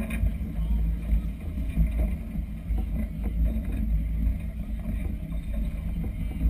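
Wind buffeting the camera's microphone: an uneven low rumble that swells and eases, with a faint steady hum beneath it.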